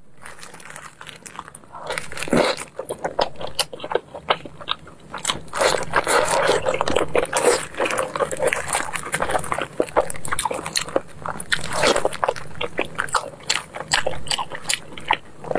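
Braised pork knuckle being torn apart by gloved hands and eaten: a run of wet, sticky tearing and smacking sounds in many short clicks, with busier stretches about a third of the way in and again past two thirds, and bites and chewing.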